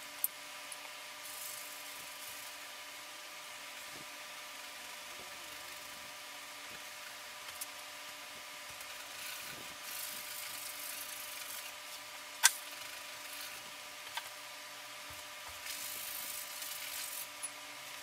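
Paintbrush rubbing on canvas in a few short scratchy passes, with several sharp clicks, the loudest about two thirds of the way through, over a steady hiss and faint hum.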